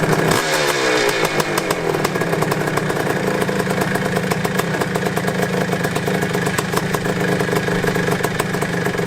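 Honda CR500 two-stroke single-cylinder dirt bike engine, freshly rebuilt, running on its own. The revs drop over the first second or so, then it idles steadily.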